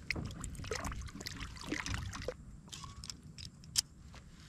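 Water splashing and dripping as a small toman snakehead is let go by hand over the side of a boat: a run of short, irregular splashes in the first half, then scattered drips, with one sharp tap near the end.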